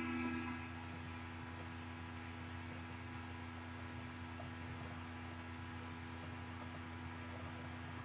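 Steady low hum with faint, even tones running through it. A louder humming tone fades out about half a second in.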